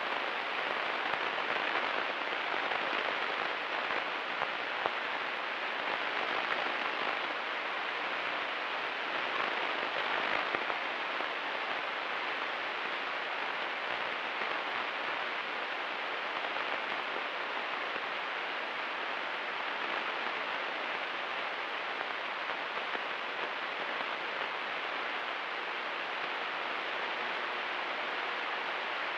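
Steady, even hiss of a Cessna 172 Skyhawk's engine and airflow noise in flight, heard through the aircraft's headset intercom feed, which cuts off the deep engine drone.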